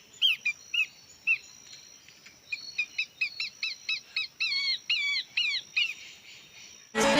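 A bird calling in rapid series of short, bending chirps, several a second, with a pause of about a second partway through, over a faint steady high whine. Music starts abruptly just before the end.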